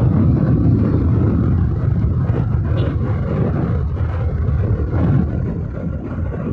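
Bajaj Pulsar 220 motorcycle running at road speed, its engine noise mixed with wind on the bike-mounted microphone. The sound sinks a little toward the end as the superbike ahead pulls away.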